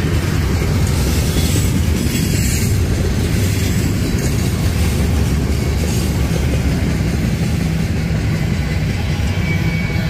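Railroad cars rolling past on the track, a steady, loud rumble that carries on unbroken.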